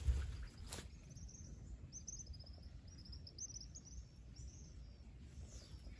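Faint outdoor ambience: quick, high chirping calls in short runs over a low, steady rumble, with a single sharp click just under a second in.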